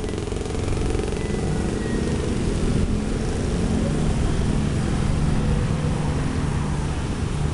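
A heavy engine running steadily with a low, throbbing rumble that grows louder about a second in.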